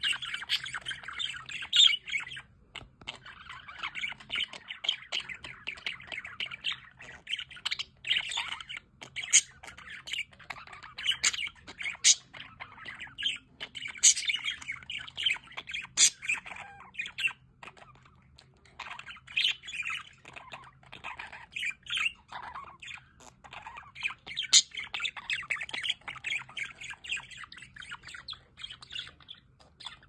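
A flock of budgerigars chattering and warbling continuously, with frequent sharp squawks and chirps over the top.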